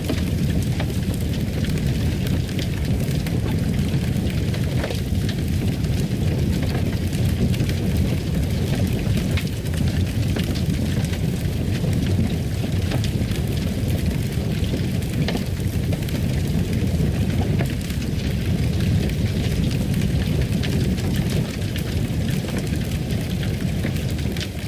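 Fire crackling: a steady low rumble with scattered sharp pops and crackles.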